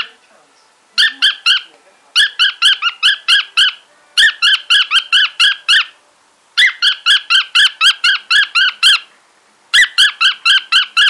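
Cockatiel serenading a ball of wool: rapid, repeated high chirps, about six a second, in five bursts with short pauses between them.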